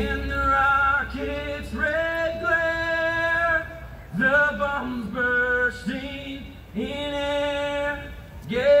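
A man singing live into a stage microphone, holding long notes in short phrases.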